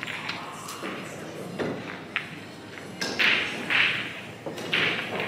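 Pool balls being gathered and set up for a rack: a couple of sharp clicks, then several short clatters of balls knocking together.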